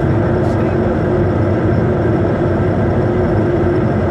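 Steady noise inside a Bombardier Challenger 350 on final approach: its two Honeywell HTF7350 turbofan engines and the rush of air over the airframe, with a constant hum underneath.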